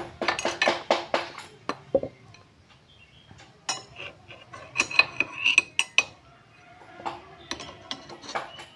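Flathead screwdriver levering against a motorcycle's rear brake disc and caliper, with rapid metallic clicks and clinks coming in spells. This is the caliper piston being pressed back into its bore to make room for new brake pads.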